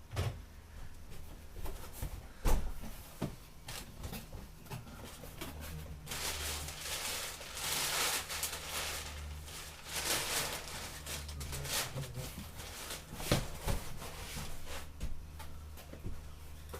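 A package being handled and opened by hand: scattered knocks and clicks, with several seconds of rustling of packaging in the middle, over a low steady hum.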